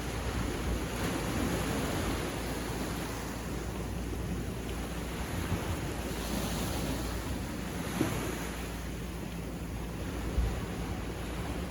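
Sea waves breaking and washing up a beach: steady surf that swells slowly and recedes, with a low wind rumble on the microphone and a couple of brief knocks in the second half.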